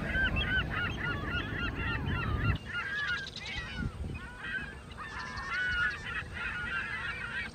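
A flock of laughing gulls calling: many short, bending calls overlapping one another without a break. A low background rumble drops away about two and a half seconds in while the calls go on.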